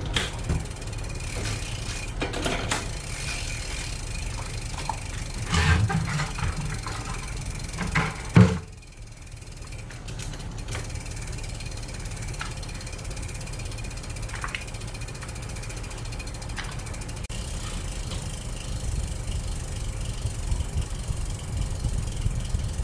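Full-suspension mountain bike's drivetrain turned by hand on a repair stand, the chain running over the rear cassette and derailleur as the rear wheel spins, during chain lubrication and gear shifting. A few knocks and clicks come in the first half, the loudest about eight seconds in.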